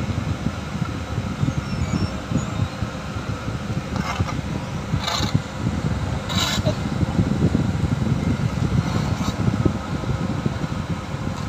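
Caterpillar asphalt paver's diesel engine running steadily as a low rumble while it lays asphalt, with a few brief higher scrapes around the middle.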